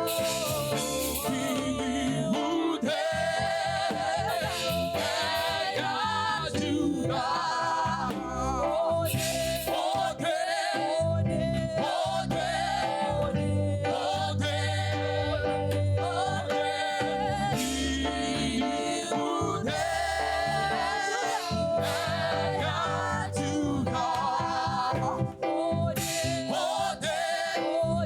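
Church choir singing a gospel praise song with a live band: steady bass and drums under the voices.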